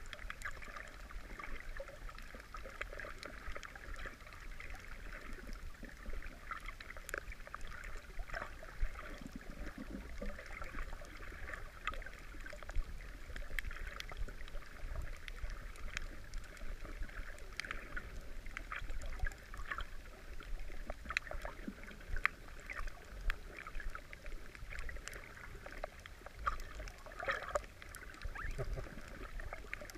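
Underwater ambience heard through a GoPro's housing: a steady water hiss with a low rumble, scattered with many sharp irregular clicks, a few a second.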